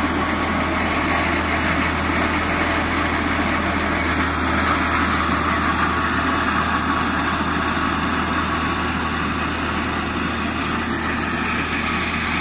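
Deutz D4006 tractor's air-cooled three-cylinder diesel running steadily, driving a hammer-flail mulcher. It grows a little fainter near the end as the tractor moves off.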